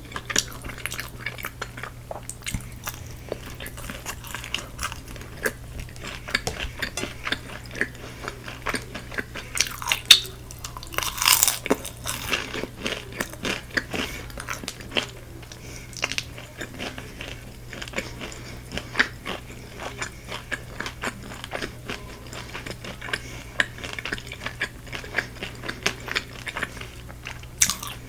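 Close-up eating of crispy Korean fried chicken: crunching bites and chewing, many short crackles throughout, a louder burst of crunching about ten seconds in, over a steady low hum.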